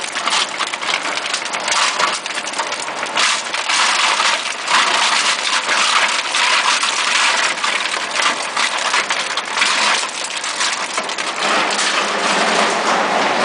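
Vogelsang XRipper twin-shaft grinder crushing and shredding meat: a loud, continuous crunching and crackling with irregular snaps. Near the end the crackle thins and a steadier machine drone comes forward.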